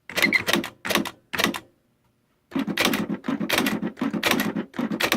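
Smith Corona electronic typewriter striking characters: three short clusters of clattering strikes, a brief pause, then a dense run of rapid strikes lasting about three seconds, as a typing error is retyped and its built-in correction ribbon lifts it off.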